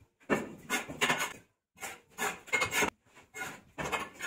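Mason's steel trowel scraping wet mortar against red clay bricks while laying a brick wall, in about three rough scraping strokes, each about a second long, with short silent gaps between them.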